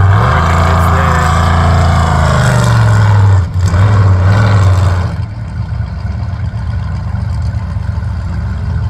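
Off-road race vehicle's engine running hard at high revs for about five seconds, with a short break about three and a half seconds in like a gear change, then dropping to a quieter, steady engine sound.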